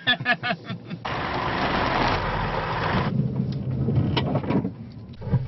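2014 Range Rover Evoque heard from inside the cabin while driven off-road: engine and running noise as a low rumble, with a loud rushing noise for about two seconds after the first second that starts and stops abruptly. Brief voices at the start.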